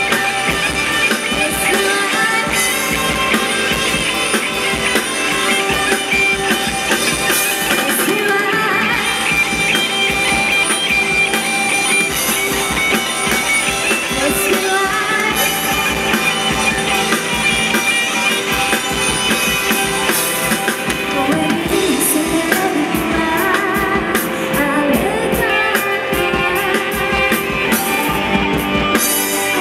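A live rock band playing a song, with guitars and a drum kit, and singing in places.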